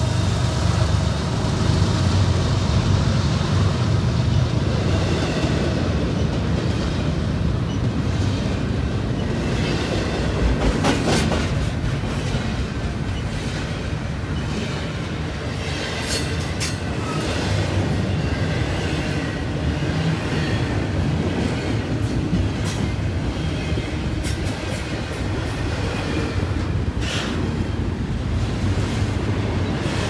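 Double-stack container cars of an intermodal freight train rolling past at speed: a steady rumble of wheels on the rails, with a few sharp clicks now and then.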